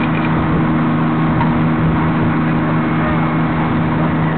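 Fire engine's diesel engine running at a steady speed, a constant drone, as it drives the pump feeding the hose lines.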